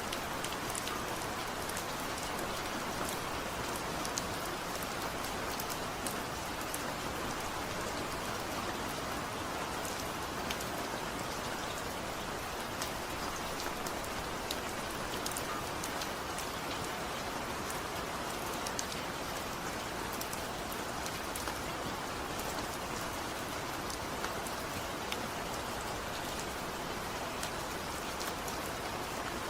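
Heavy rain falling steadily, without thunder, a dense even hiss with scattered sharp drop ticks.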